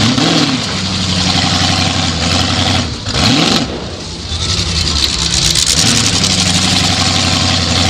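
Ford 351M V8 in a 1979 Ford Thunderbird running loudly, heard from inside the stripped cabin, with a quick rev up and back down near the start and again about three and a half seconds in.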